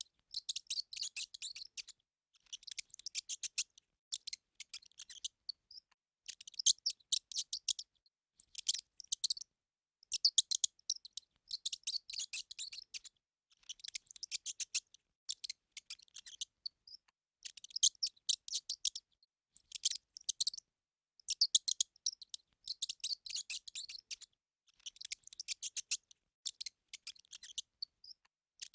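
Hamster squeaking in short bursts of rapid, very high-pitched squeaks. Each burst lasts about a second or two, and they repeat every couple of seconds with brief silences between.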